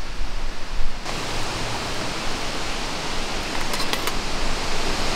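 Steady hiss of a gas camping-stove burner running, starting suddenly about a second in, with a few light metallic clinks near four seconds.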